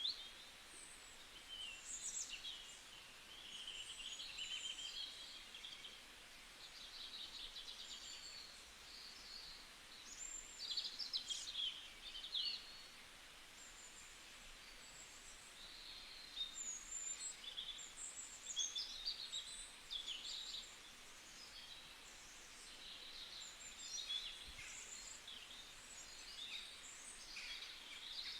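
Several small wild birds calling, with many overlapping high chirps, short trills and quick whistled notes over a faint background hiss.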